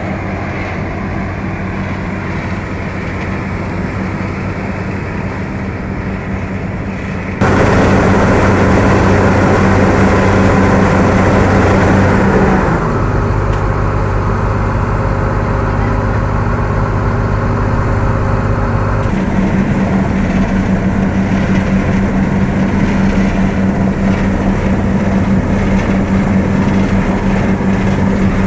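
Asphalt paver's diesel engine running steadily with a low hum. The sound changes abruptly several times: louder about a quarter of the way in, and different in tone about halfway through and again about two-thirds of the way in.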